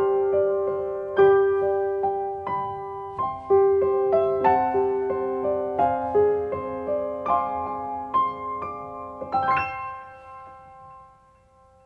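Background piano music: a slow, gentle melody of single struck notes over held lower notes. Near the end a final chord sounds, rings and fades out.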